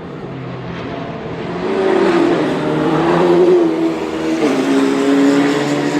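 Formula 4 single-seater racing engine at high revs, growing louder as it comes closer. Its pitch drops sharply about four and a half seconds in, then holds steady.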